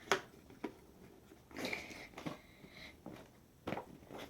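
Close handling noises while working with Play-Doh: a sharp click at the start, a softer click half a second later, then a short breathy rustle and a few faint taps.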